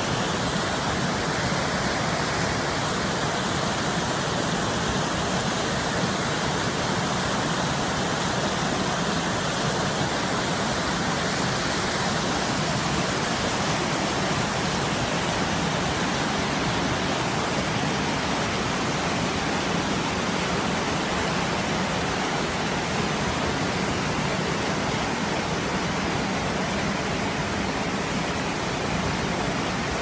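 Mountain stream rushing over boulders in white-water rapids, a steady, even rush of water.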